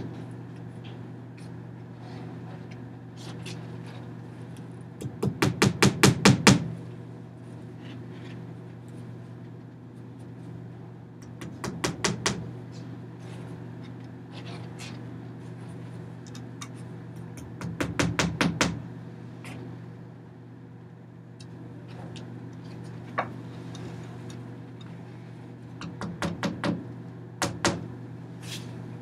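Short bursts of rapid, evenly spaced clicking or tapping, about eight a second, four times, over a steady low hum.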